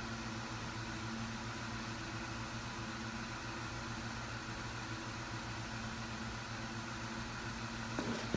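Steady low background hum with no speech, and a brief click near the end.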